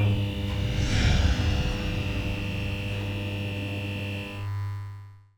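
A sustained electronic drone with a low hum and a high held tone, swelling with a whoosh about a second in, then fading out near the end: an intro sting.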